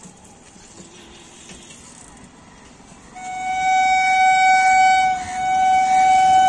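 Horn of an approaching EMU local train: a loud, steady single-pitched blast starting about halfway through, with a brief break after about two seconds before it sounds again. Before the horn there is only a low background rumble.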